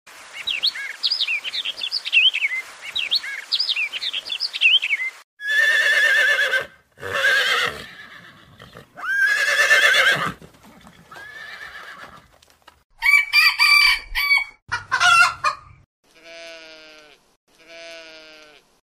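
Birds chirping for about five seconds, then a rooster crowing two or three times, followed by other short farm-animal calls, two alike near the end.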